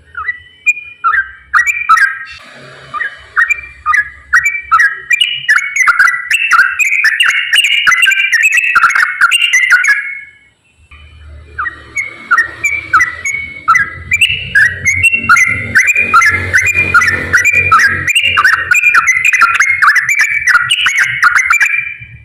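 Yellow-vented bulbul (trucukan) singing its rapid, run-on chattering song of quick whistled notes, in two long bouts with a short break about ten seconds in.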